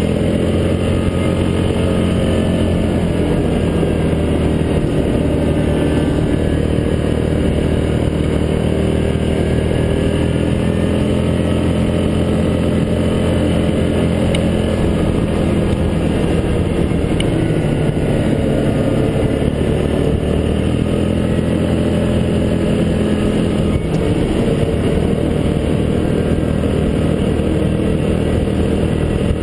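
Yamaha Grizzly 700 ATV's single-cylinder four-stroke engine running under way, its pitch rising and falling a little as the throttle changes.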